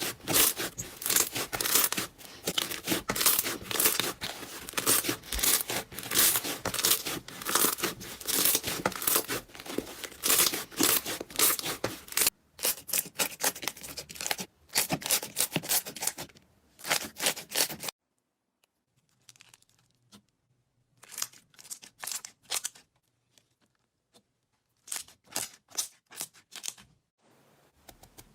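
Slime being squeezed and pulled apart by hand, giving a dense run of crackling and popping clicks. About twelve seconds in it turns into quieter, sparser bursts of crackles with short pauses between them.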